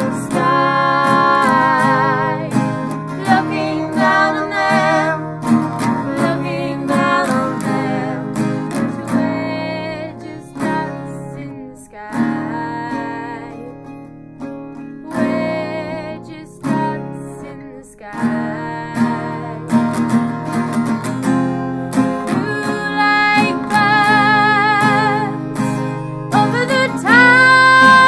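A girl singing with vibrato over acoustic guitar. Around the middle the voice thins out and the guitar carries on mostly alone; near the end the voice slides up into a long held note.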